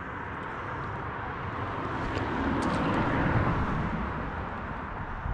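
A car passing over the road bridge overhead: its tyre and road noise swells to a peak about three seconds in, then fades away.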